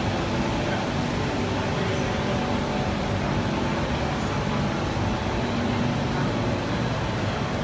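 Steady rush-hour city traffic noise: many road vehicles' engines running together, an even hum with no single event standing out.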